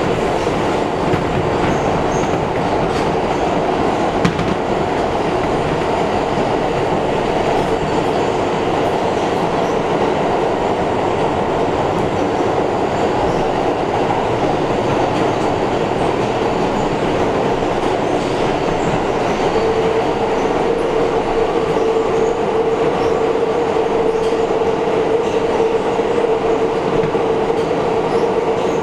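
New York City Subway train running at speed through a tunnel, heard from inside the front car: a steady rumble of wheels on rail. A steady whine joins it and grows much louder about two-thirds of the way in.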